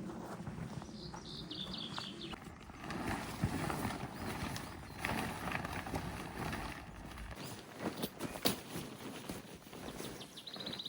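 Outdoor ambience with a bird chirping briefly about a second in, and scattered sharp knocks and clicks, the loudest a couple of sharp knocks late on.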